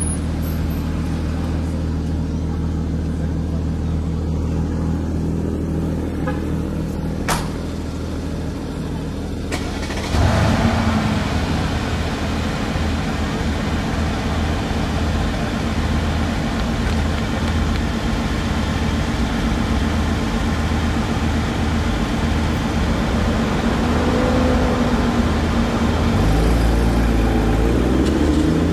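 A car engine idling steadily in street traffic, with a few sharp clicks in the first ten seconds. About ten seconds in the sound grows louder and fuller, and near the end an engine revs up with rising pitch.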